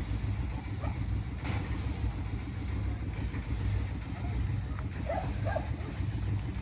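Septic pump truck's engine and vacuum pump running with a steady low drone while sucking sewage out of a septic tank through a hose.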